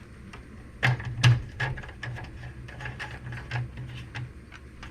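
Irregular light clicks and taps of washing-machine control-panel parts and wire connectors being handled and fitted, about ten in all, the sharpest about a second in, over a low steady hum.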